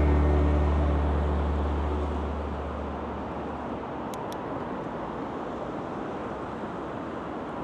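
The last low note of background music dies away over the first few seconds, leaving steady street traffic noise mixed with wind.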